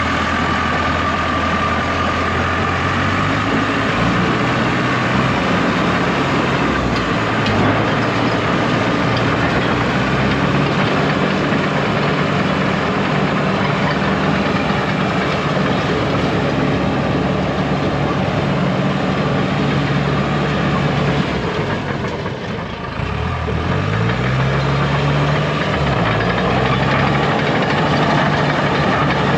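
Dressta TD-8H crawler dozer's diesel engine running. Its pitch steps up a few seconds in, then drops briefly and climbs back up near the end.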